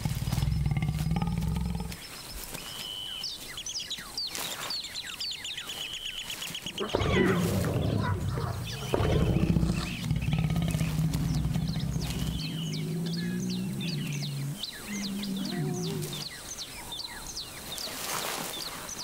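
Adult male lion growling low and rough in warning at cubs pestering him: a short bout at the start, then a longer series from about seven seconds in. High chirps run over the growls.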